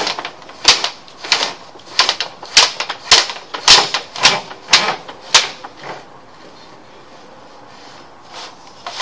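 Sewer inspection camera's push cable being pulled back out of the line by hand: a run of sharp clacks, about two a second, that stops about six seconds in.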